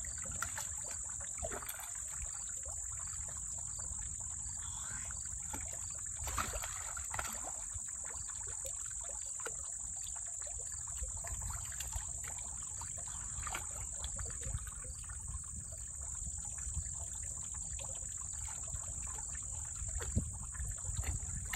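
Water splashing and sloshing in irregular bursts as two common snapping turtles wrestle in a shallow pond, over a steady high-pitched drone of insects.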